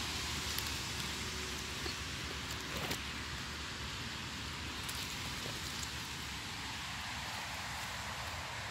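Steady outdoor hiss with a low, uneven rumble, and a few light clicks about three seconds in.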